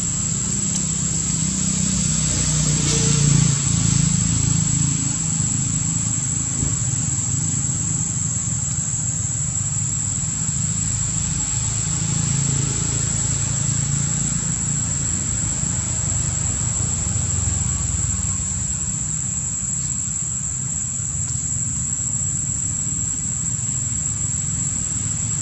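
Insects droning steadily on one high pitch, over a low outdoor rumble that swells briefly about three seconds in.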